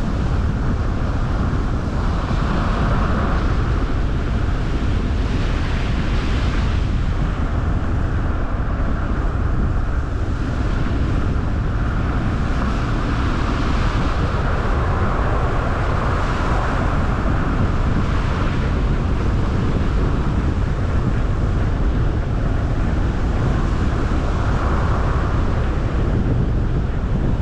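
Steady road noise from a car driving: a low rumble with a hiss that swells and fades at times.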